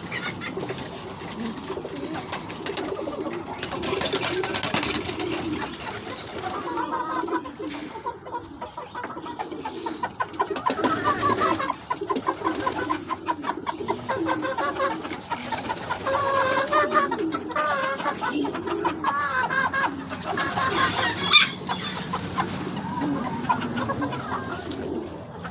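A flock of homing pigeons cooing, mixed with the clucking and chattering calls of other fowl around the feed, as the birds gather to eat bread.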